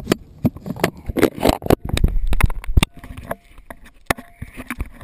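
A rapid, irregular series of sharp clicks, knocks and scraping close to the microphone, with a burst of low rumbling noise about two seconds in.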